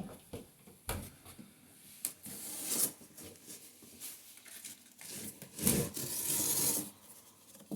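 Cardboard shipping box being handled and opened: cardboard rubbing and scraping, with a few sharp knocks and two longer scraping or ripping spells, the louder one near the end.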